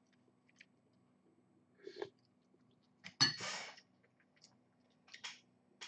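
A man coughs suddenly about three seconds in, spluttering into his hand, then gives a softer cough near the end: a reaction to the sharp sourness of Thai chili vinegar just tasted from a spoon.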